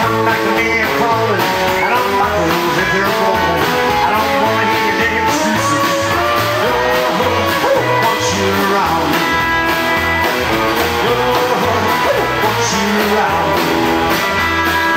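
Live rock-and-roll band playing an instrumental passage: electric guitar lines over upright bass, drums and strummed acoustic guitar, with a steady bass beat.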